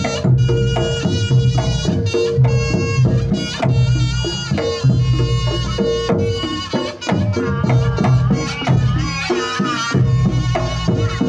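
Reog Ponorogo gamelan music: kendang drums keep a steady rhythmic pattern under a held gong tone, with a wavering, pitch-bending melody line on top.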